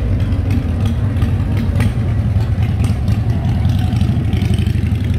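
Cruiser motorcycle engine running close by, a loud, deep sound with a fast, uneven pulse.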